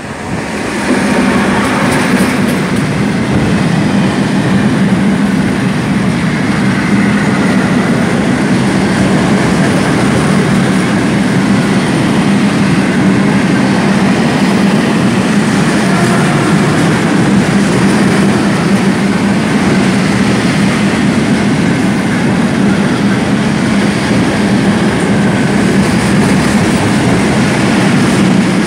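Freight train passing close by: its BR232 diesel locomotive goes by about a second in, with a sharp rise in loudness, and then a long string of open freight wagons rolls past with a steady, loud rumble.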